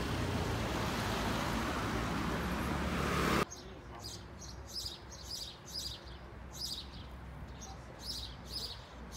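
A steady rushing noise that cuts off suddenly about three and a half seconds in. It gives way to a small bird chirping over and over, short high falling notes a few times a second.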